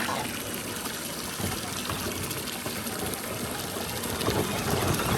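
Water running steadily from a garden hose.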